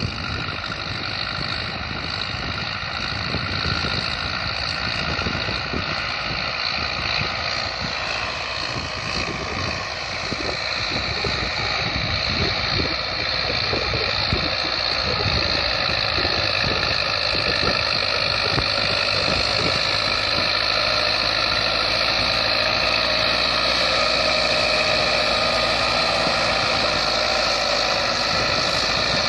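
QLN1004 farm tractor's diesel engine running steadily at work, growing slightly louder over the stretch.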